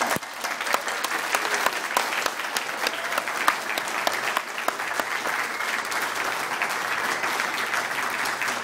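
Audience applauding steadily, many hands clapping at once, as a speaker is welcomed to the stage.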